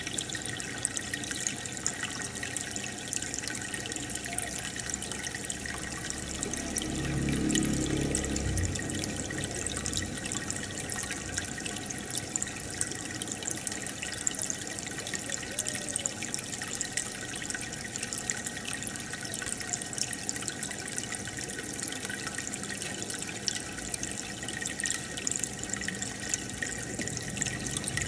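Aquarium water bubbling and trickling steadily as air from an air stone rises through the tank in a stream of fine bubbles. A brief low hum swells about seven seconds in.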